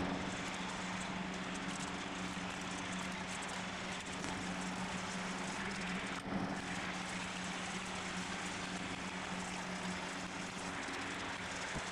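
Aviation tin snips cutting thin aluminium sheet by hand, heard over a steady whir with a low hum.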